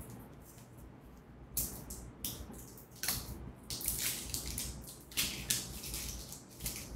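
Wet smacking and kissing sounds from monkeys' mouths against a person's face: a quick irregular series of short smacks, starting about one and a half seconds in.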